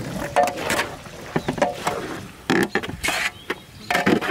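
Long-handled metal spatula scraping and stirring diced peppers and carrots in a large aluminium pan: a run of irregular scrapes and knocks, some with a brief metallic ring.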